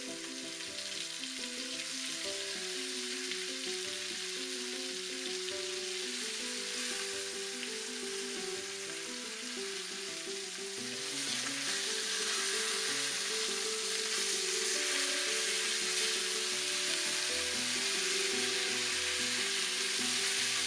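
Chicken thighs frying in butter and rendered pork-belly fat in a cast-iron skillet: a steady sizzle that grows louder about eleven seconds in. Music plays underneath.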